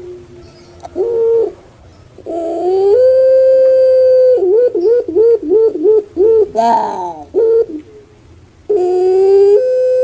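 Puter pelung, a caged ringneck (Barbary) dove, calling loudly. A short note about a second in is followed by a rising note that levels into a long held coo. A fast wavering trill of about three pulses a second follows, then a couple of short notes, and near the end another rising note swells into a second long held coo.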